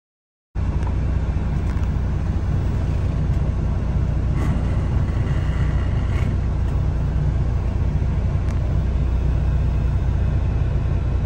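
Semi truck's diesel engine running with a steady low rumble, heard from inside the cab. The sound cuts in abruptly about half a second in.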